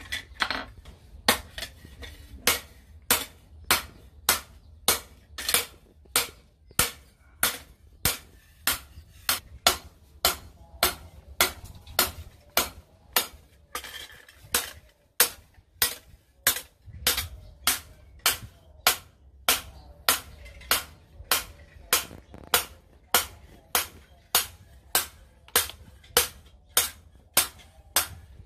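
A hand hammer forging a steel blade on a steel post anvil: steady blows, about two a second, each with a sharp metallic ring. The hammering pauses briefly about a second in and again about halfway through.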